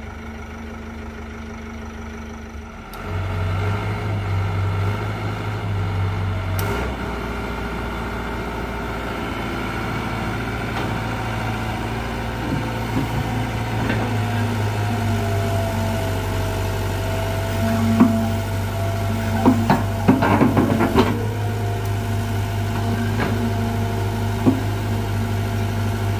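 Sumitomo SH120 A1 excavator's diesel engine rising in speed about three seconds in, then running steadily under load as its hydraulic pump is turned up to try to climb the machine out of a pit. The owner judges the hydraulic system weak. A few clanks come a little after the middle.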